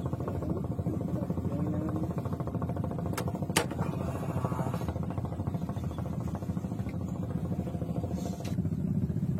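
A small engine running steadily, with two sharp clicks about three seconds in.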